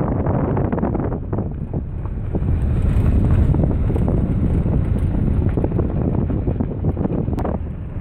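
Heavy wind buffeting the microphone over the low rumble of a vehicle driving along a dirt road.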